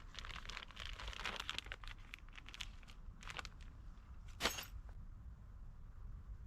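Irregular rustling, crinkling and clicking of something being handled, with one sharp knock about four and a half seconds in.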